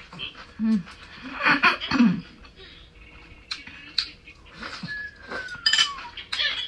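Close-up mouth sounds of eating rice and kimchi: wet chewing, smacking and sucking, with scattered clicks. A thin falling whine about five seconds in.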